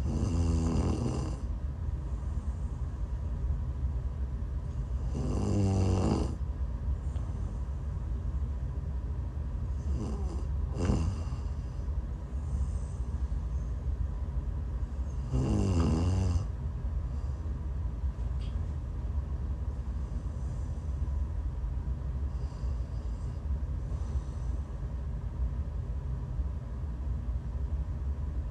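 A woman snoring in her sleep while sick: four loud snores about five seconds apart, then about twelve seconds of only faint breaths. A steady low rumble runs underneath.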